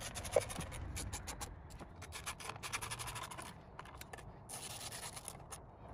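Hand ratchet clicking in quick runs of small ticks as the bolts and nuts of a winch control box's bottom plate are tightened.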